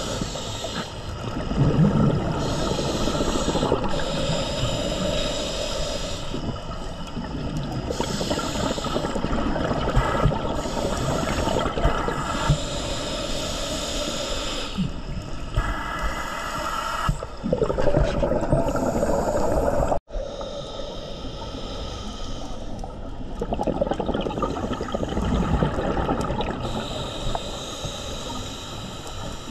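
A scuba diver breathing through a demand regulator underwater: a hissing inhale alternating with a rumbling burst of exhaled bubbles, every few seconds. The sound breaks off sharply about two-thirds of the way through, then the breathing carries on.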